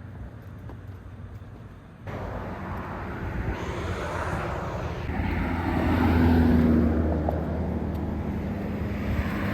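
Engine noise of a passing vehicle outdoors, coming in suddenly about two seconds in, swelling to a peak in the middle and easing off.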